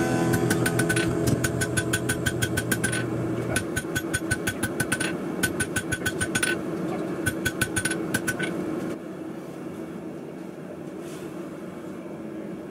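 Blacksmith's hammer striking a horseshoe on a steel anvil in quick runs of about four or five ringing blows a second, with short pauses, spreading the shoe. The hammering stops about nine seconds in, leaving a steady hum that runs underneath throughout.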